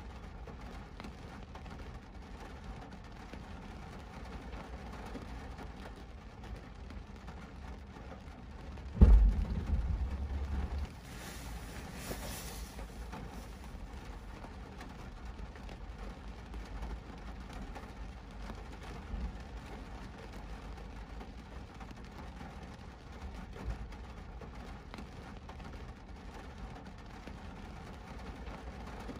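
Steady low rumble of a car standing in traffic in the rain. About nine seconds in comes a sudden loud low thump that rumbles on for about two seconds.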